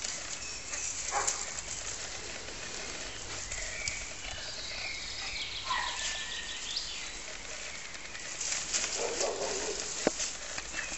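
Branches of a dense conifer bush rustling as a small dog clambers through them, with birds chirping in the background.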